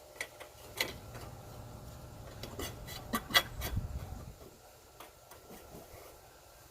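Scattered clicks and metallic taps of hand tools and hardware being handled, with a handful of sharper knocks a little past the middle over a soft low rumble.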